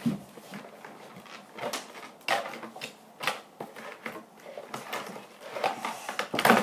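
Irregular clicks, knocks and rustles of cardboard and plastic packaging being handled as a toy trailer is taken out of its box, with a louder knock near the end.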